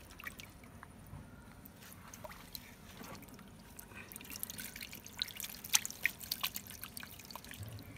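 Water dripping and splashing from a hand net full of molly fish as it is swept through a shallow tank and lifted out. The net brings a run of quick, sharp drips and splashes in the second half.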